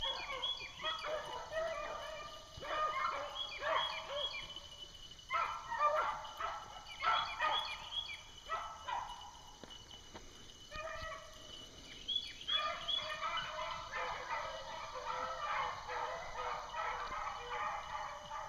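Pack of beagles baying in chorus as they run a rabbit on the trail, the cry swelling and fading, dropping off briefly about ten seconds in and picking back up from about twelve seconds.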